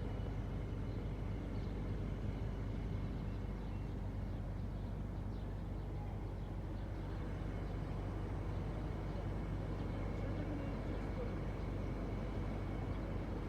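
Air conditioner running with a steady low hum and an even whir, plus a few faint steady tones above it.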